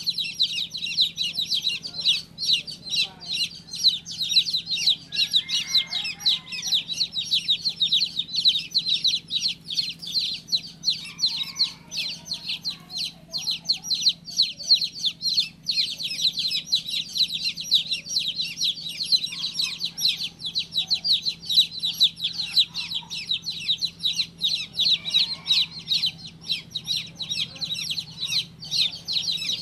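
Baby chicks peeping nonstop, a dense stream of short, high-pitched cheeps overlapping one another.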